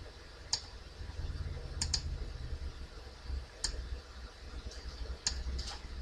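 Computer mouse clicks placing pen-tool anchor points: about six short sharp clicks at uneven intervals, two close together about two seconds in, over a low steady hum.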